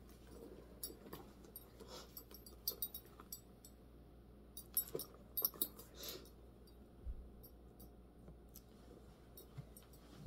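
Faint clicks, clinks and rustles of a small Dooney & Bourke leather tote being handled: its metal hardware and charms clicking and its leather handles and strap shifting. The clicks come in clusters through the first two-thirds and thin out after, with one soft low thump about two-thirds of the way in.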